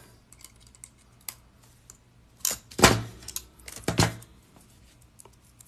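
Small metal jump rings clinking and pliers clicking as chainmaille rings are closed and handled on a work mat. A few louder knocks come about two and a half, three and four seconds in, some with a dull thud.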